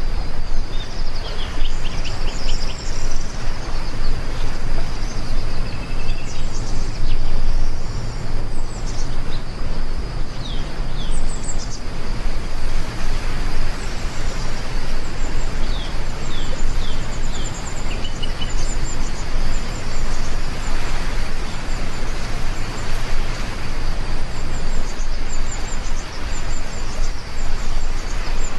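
Heavy rain falling steadily as a dense hiss, with a low steady rumble underneath. Birds chirp again and again over the rain, and a thin high whine holds steady.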